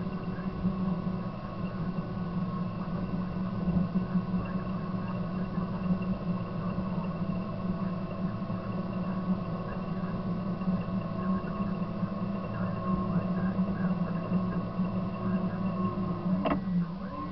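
Caterpillar D6 bulldozer's diesel engine running steadily while the dozer pushes dirt, heard from inside the cab. A single sharp click sounds about a second before the end.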